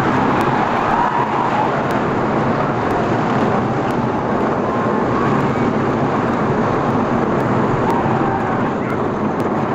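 Lightning Racer wooden roller coaster train running along its track at speed: a steady, loud roar of track rattle and rushing wind on the rider-held microphone.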